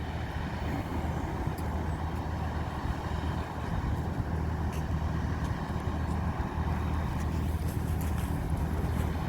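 A steady engine rumble that gets a little louder about four seconds in, with a few light clicks near the end.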